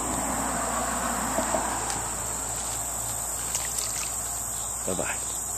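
Steady, high-pitched drone of an insect chorus, over a soft hiss of running creek water.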